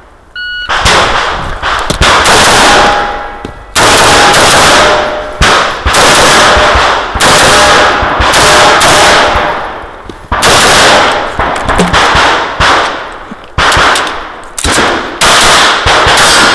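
A shot timer beeps once about half a second in, then rapid strings of gunfire follow: fast semi-automatic shots from an AR-15-style rifle, with the shooter on a 9mm Sig P226 pistol by the end.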